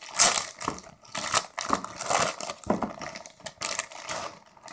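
A shipping package being torn open and handled by hand: irregular crinkling and rustling of the wrapping, with scrapes and small knocks.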